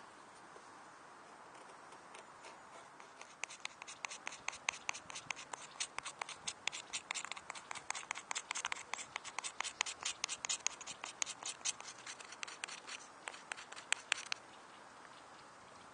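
Spine of a Täräva Jääkäripuukko scraping a ferrocerium rod over wood shavings in quick, short strokes, several a second. The scraping starts about three and a half seconds in and stops near the end.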